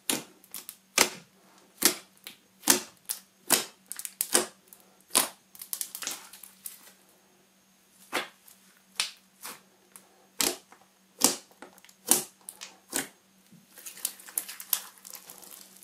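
Thick white slime made from PVA glue being squeezed, poked and stretched by hand, giving sharp wet pops and clicks about once a second as air pockets in it burst, with denser crackling about a third of the way in and again near the end. A faint steady hum lies underneath.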